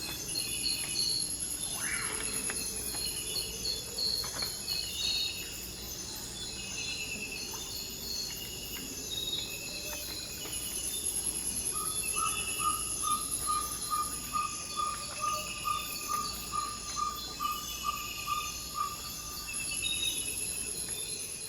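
Ferruginous pygmy owl giving its territorial series of short, evenly repeated 'toop' whistles, about three a second, starting about halfway in and running for some seven seconds. A dense chorus of trilling insects continues throughout.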